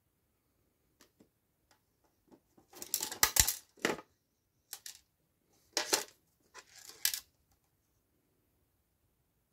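Handling noise from a card model box with a clear plastic window as it is turned over in the hand: a few short scrapes and crinkles, the loudest cluster about three seconds in and two more near the end.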